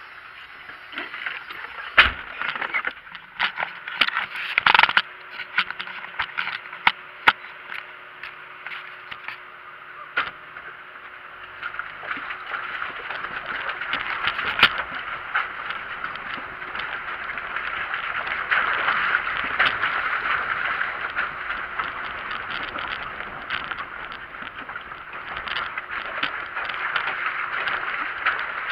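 Off-road vehicle rolling slowly over a rocky dirt trail, heard through a body-mounted camera: sharp knocks and clicks over a hiss during the first several seconds, then a steadier rumble and crunch of the drive that grows louder from about twelve seconds in.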